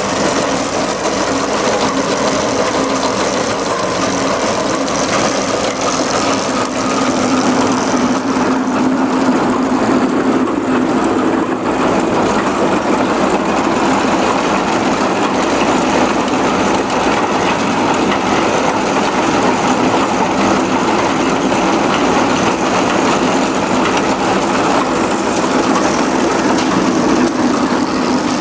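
Ginseng digger's engine running steadily at a constant speed, a continuous mechanical drone with a low hum.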